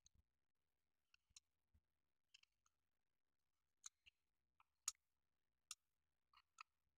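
Faint, scattered clicks and light scrapes of a snap-off craft knife working on the plastic body shell of an N gauge model train car as it is handled, trimming the decal out of the window openings. The two sharpest clicks come about five seconds in, under a second apart.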